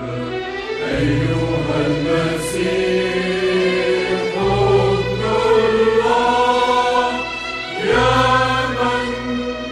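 Choral music: a choir singing long held notes over a sustained low bass, the chords changing about every three to four seconds.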